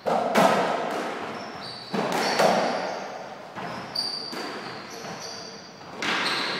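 Softraquet rally: sharp ball strikes from the rackets and the wall, echoing, in pairs about half a second apart, four times. Brief high squeaks come between the strikes.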